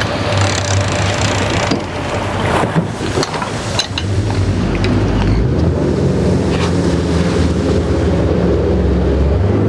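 Boat engine running at idle, with wind buffeting the microphone and a few light knocks about three to four seconds in. The engine's hum grows steadier after about four seconds.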